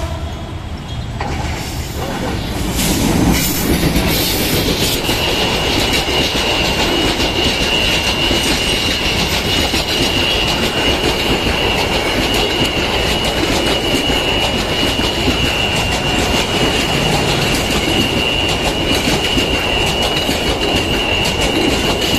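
Diesel-hauled Bangladesh Railway intercity express train passing close by. The noise builds over the first few seconds as the locomotive arrives, then becomes a steady heavy rumble and clatter of coaches rolling over the rails. A constant high-pitched squeal rides on top from about five seconds in.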